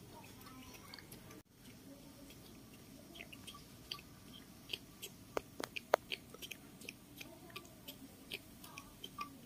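Baby macaque sucking milk from a feeding bottle: faint, irregular wet smacking and clicking at the teat, with a few sharper clicks a little past the middle.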